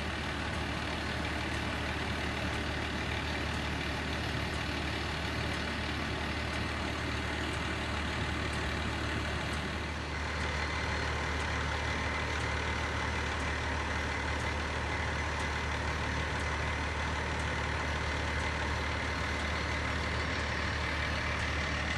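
Heavy fire-rescue truck's diesel engine idling steadily, under the even hiss of heavy rain.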